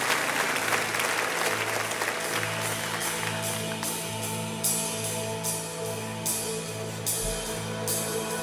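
Live band playing a song's quiet intro: sustained chords over a low note that pulses about once a second. Applause fades out over the first few seconds, and a high hiss repeating about every second comes in about halfway.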